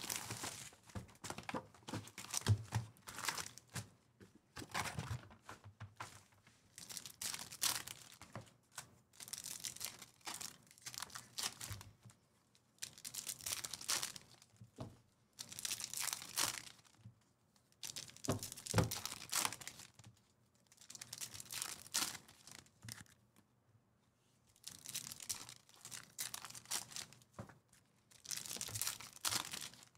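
Foil wrappers of Topps Chrome trading card packs being torn open and crinkled by hand, in repeated bursts of tearing and rustling with short pauses between.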